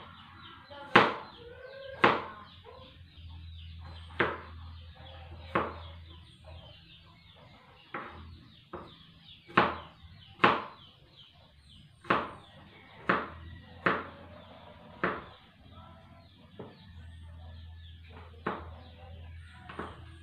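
A series of sharp knocks, about one every second at uneven intervals, each loud and short.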